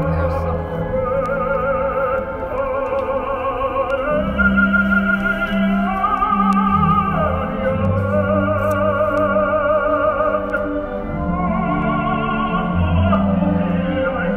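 A recording of an operatic tenor singing an aria with orchestra, in long held notes with a wide vibrato over sustained low orchestral notes.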